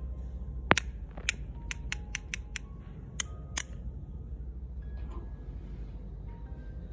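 Sharp plastic taps, about ten in three seconds with the first the loudest: a water brush pen struck against another pen's barrel to flick red paint splatters onto the paper.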